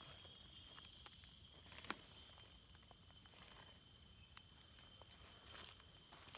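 Rainforest insect chorus: several steady high-pitched trilling tones held at once. Two sharp clicks stand out, about one and two seconds in, the second louder.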